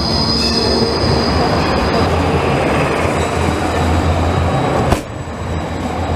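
BVB Basel low-floor tram rolling past close by, a steady rumble of wheels on street track with a low hum. A thin high wheel squeal rings over it for the first two seconds, and a single sharp clack comes about five seconds in.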